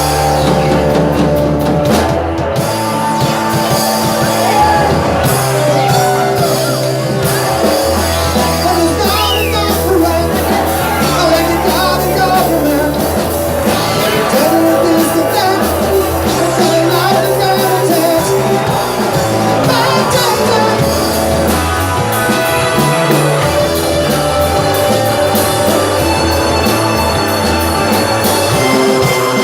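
Live rock band playing: electric guitar, bass and drum kit, with a bending lead line above a bass that shifts notes every couple of seconds.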